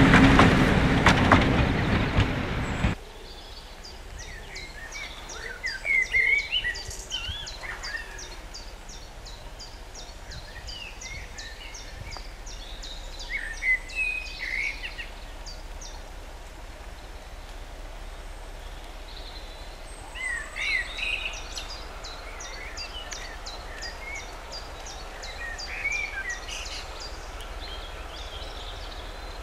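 A passing train rumbling and clattering on the rails cuts off abruptly about three seconds in. Then countryside birdsong: runs of thin, rapid high ticking notes and short chirps every few seconds over a quiet background.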